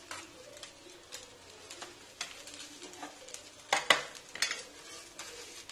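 Metal spoon clicking against a steel plate while grated coconut is sprinkled onto a rice-batter crepe that sizzles faintly in the pan. About four seconds in, a metal spatula clinks sharply against the pan a few times, the loudest sounds.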